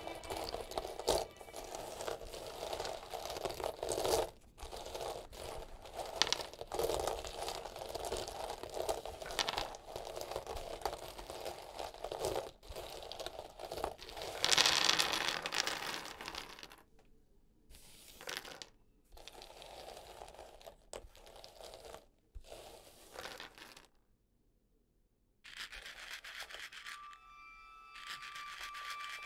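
Fingers raking and shuffling through a pile of dried runner beans on a hard surface, the beans clicking and rattling against one another in a dense, continuous clatter that is loudest about halfway through. Later it thins out to scattered single clicks as a few beans are nudged, with a short silent pause near the end.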